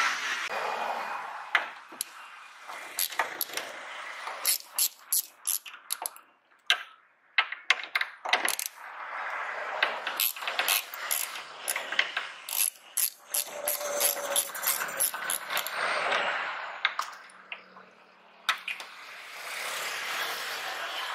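Tool work on a Honda BR-V's tailgate strut fasteners: many sharp metallic clicks and ratcheting, with stretches of steady whirring from an electric ratchet wrench turning a 10 mm socket.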